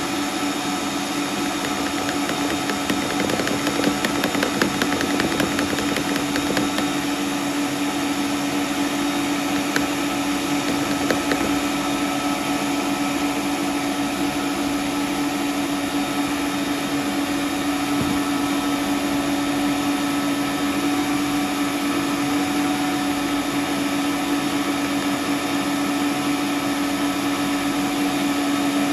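Electric stand mixer running at a steady speed, a constant motor hum. Light tapping and scraping from a plastic flour sieve in the first few seconds.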